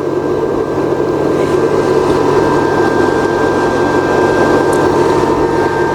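Solar charge controller's cooling fan running with a steady whir, under a constant electrical hum and two thin, steady high tones.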